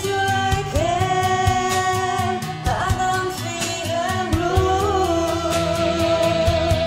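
A song: a singing voice holding long notes over a band with a steady beat.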